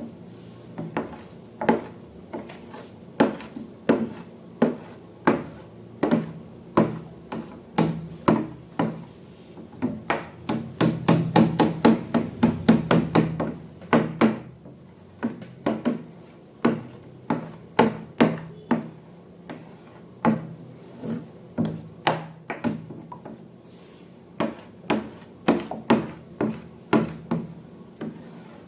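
A series of short, sharp taps and clicks, about one to two a second, that quicken into a fast run of taps in the middle, like hard objects being handled and knocked together during slime making.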